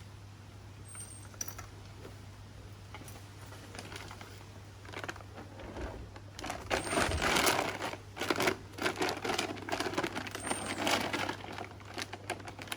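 Bird feed being poured into a feeder: a dense rattle of many small hard pieces, starting about five seconds in and loudest soon after, then tailing off near the end.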